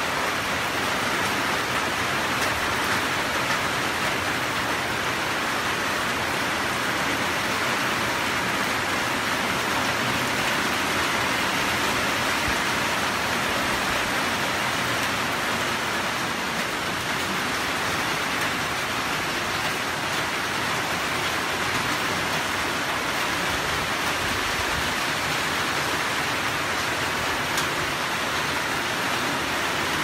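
Steady rain falling, an even hiss with no pauses or letups.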